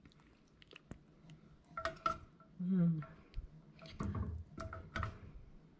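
A spoon clinking against a dish several times, some strikes ringing briefly, as soup is served over rice.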